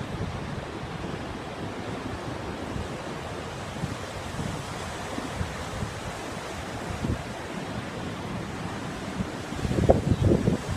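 Rough ocean surf breaking and washing in a steady rush, with wind buffeting the microphone in irregular low gusts that are strongest near the end.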